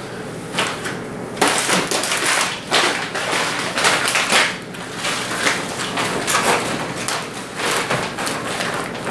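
Rustling and crinkling of a bikepacking seat bag's fabric and the packed gear as they are handled and stuffed into the bag, in a run of irregular scrunches of varying loudness.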